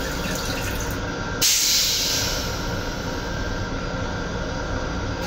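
Stainless steel toilet in an M7 railcar restroom flushing: rinse water runs down the bowl, then about a second and a half in a loud hiss starts suddenly and fades over a second or so. Underneath is the train's steady running hum.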